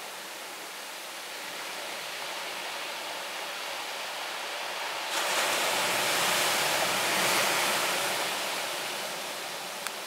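Typhoon-driven surf breaking and washing up a dark beach, a steady rushing hiss. It turns suddenly louder about halfway through, then eases off near the end.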